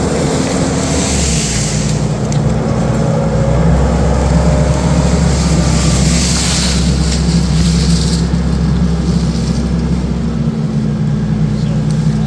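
Skid steer engine running steadily at working throttle while it moves a tree-shear attachment, with its pitch stepping up about a second in. A few short rushes of noise rise over it, around two seconds in and again from about six to eight seconds.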